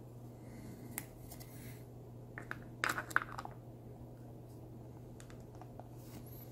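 A few small plastic clicks and taps as the pieces of a clear plastic terrarium ball are handled and fitted together, the busiest cluster about three seconds in, over a steady low hum.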